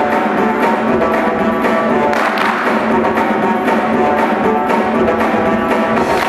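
Loud dance-workout music with a steady percussive beat.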